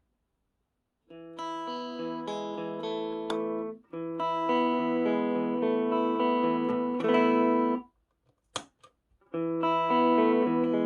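Electric guitar played through a pedalboard, ringing chords in two phrases on the clean, dry signal with no effects. After a short pause there is a single sharp click, a pedal footswitch, and the guitar comes back in with the boost pedal engaged for the last second and a half.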